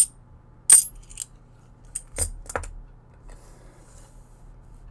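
Silver half dollars dropping and clinking together on a hard surface: two loud, bright ringing clinks, then a few softer clicks and knocks about two seconds in.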